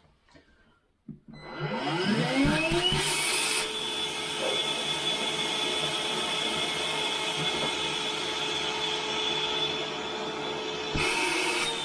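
Bosch GAS 18V-10L cordless wet/dry vacuum switched on about a second in, its motor whining up to speed and then running steadily. It turns hissier for a moment soon after start-up and again near the end as scraps of cardboard are sucked in.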